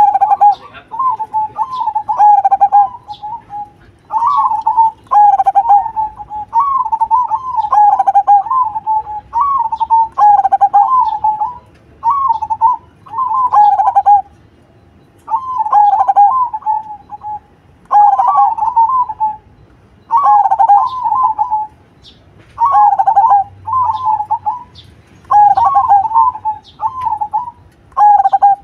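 Zebra dove (perkutut) singing: a trilled, stuttering cooing phrase repeated over and over, one phrase every second or two, with a few short pauses between runs.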